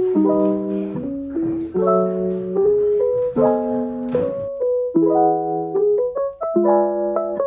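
Background piano music: a gentle piano piece playing chords and a melody that change every second or so.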